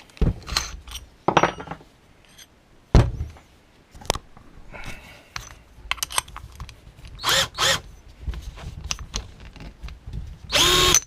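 Knocks and clattering as a bit is handled and fitted into a Parkside 12 V cordless drill, with short bursts of the drill's motor. Two brief bursts come past the middle, and a louder one of about half a second comes at the very end and stops abruptly.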